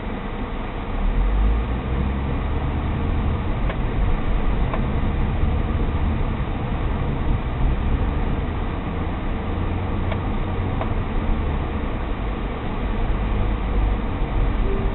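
Road and engine noise of a car being driven, heard from inside the cabin: a steady noisy rumble, heaviest at the low end.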